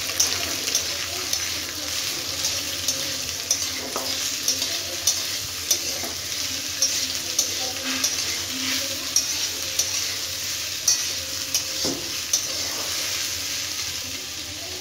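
Julienned potatoes and green chillies sizzling steadily in hot mustard oil in a steel kadhai, stirred with a metal spatula that taps and scrapes the pan now and then.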